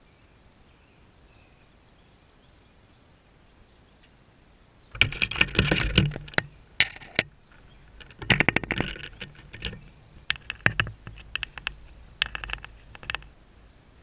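Handling noise on a GoPro camera: after about five seconds of faint quiet, bursts of loud scraping, rubbing and clicking as the camera housing is moved and knocked close to its microphone.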